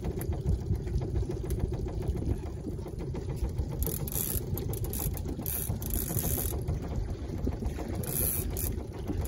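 Fishing reel being cranked against a hooked trout, its gears whirring, over the steady low rumble of the boat's motor. A few short hissing bursts come in around the middle and near the end.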